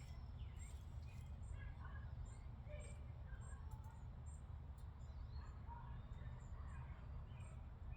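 Faint birds chirping now and then over a steady low rumble of background noise.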